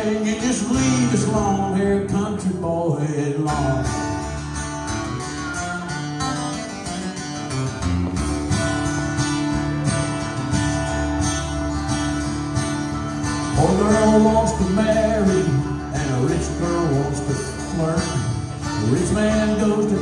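Acoustic guitars strumming in a country-style song, with a harmonica playing sustained, bending notes over them.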